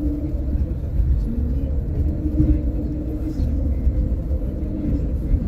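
Coach cabin noise on the move: a steady low rumble of the engine and tyres with a wavering hum above it.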